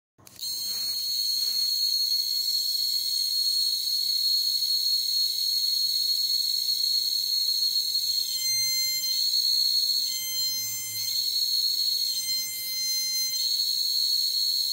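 Piezo buzzer of a homemade 555-timer metal detector sounding a steady, high-pitched tone. Three times the tone briefly shifts lower for about a second, the detector's response as its search coil picks up metal.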